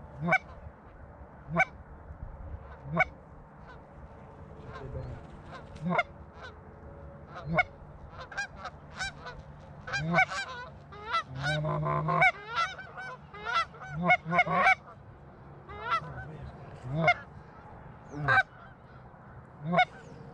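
Canada geese honking. At first there are single loud honks about every one and a half seconds, then a run of rapid overlapping honks and clucks through the middle, then single honks again near the end.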